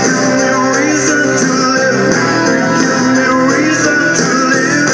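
Loud rock music with guitar playing steadily.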